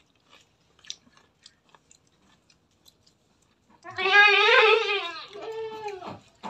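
Goat bleating: one long, loud, wavering bleat about four seconds in, then a shorter one right after. Before it there are only faint clicks of chewing and eating by hand.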